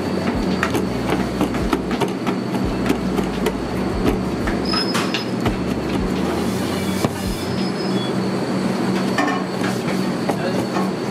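Steady commercial-kitchen background noise: a constant machine hum with a thin high whine running through it, and scattered light clicks and clatters.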